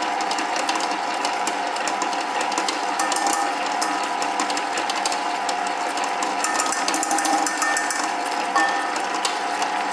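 A 3/4-horsepower commercial planetary stand mixer running at a steady speed, its gear drive giving a steady whine with a fine, continuous rattle, as its beater churns a butter mixture in the stainless-steel bowl.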